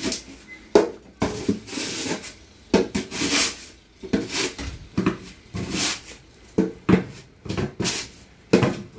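Snow shovel scraping and pushing snow off a doorstep in quick strokes, about two a second, several starting with a sharp knock as the blade hits the step.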